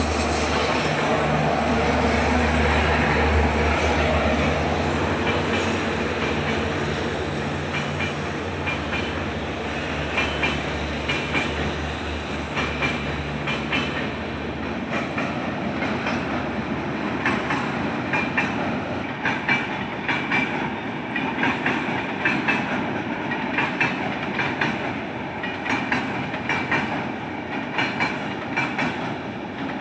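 LHB passenger coaches of the Rajdhani Express running past at speed, their wheels clicking over rail joints in a steady clickety-clack. For the first half a low drone sits under the wheel noise with a thin high whine over it, and the drone stops about halfway through.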